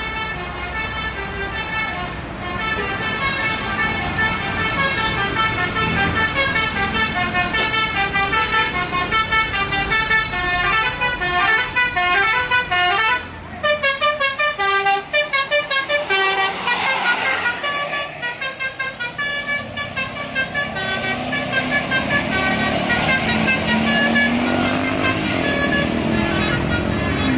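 Tour-bus telolet horns, a set of electric multi-trumpet air horns, play fast tunes note after note, with a brief break about halfway through. Toward the end a bus engine's pitch rises underneath the horns.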